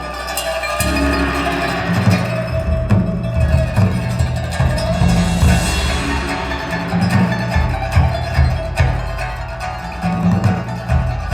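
Recorded music played over a hi-fi loudspeaker system: a plucked string instrument over deep, pulsing bass notes and light percussion.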